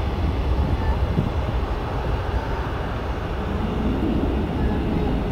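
Jet airliner engines making a steady, deep rumble with a hiss spread across the higher sounds.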